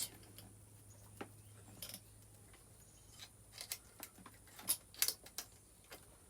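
Small metal parts and tools clicking and clinking as they are handled during carburetor work, scattered irregular clicks with a cluster of the loudest about five seconds in.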